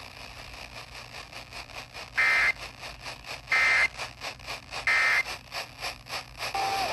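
Three short, loud bursts of Emergency Alert System SAME digital data, the raspy two-tone 'EAS header' screech, about 1.3 seconds apart. They are short enough to be the end-of-message ('NNNN') codes that close an alert. They come over hissing, crackling radio reception.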